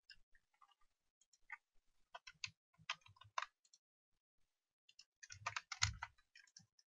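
Faint clicking of a computer keyboard and mouse in scattered clusters, a few strokes carrying a dull thud, the busiest and loudest run about five to six seconds in.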